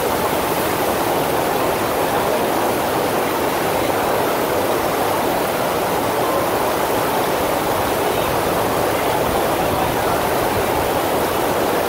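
Steady rush of water from a FlowRider sheet-wave machine, a thin sheet of pumped water pouring continuously up and over the padded wave surface.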